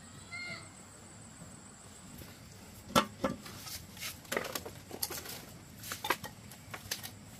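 A series of irregular, sharp knocks and light clatter, like objects being handled, about half a dozen of them, the loudest about three seconds in.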